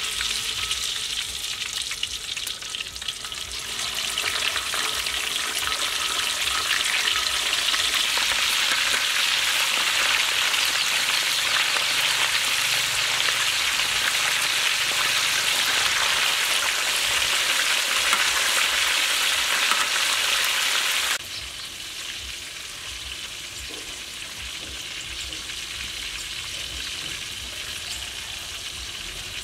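Pieces of snakehead fish deep-frying in hot oil in a wok: a steady, dense sizzle of bubbling oil. About two-thirds of the way through it drops suddenly to a softer sizzle.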